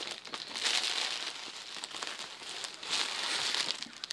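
Crinkling and rustling of a gift bag and the clear plastic wrapping of a package being handled and pulled out, with two louder stretches of crackling.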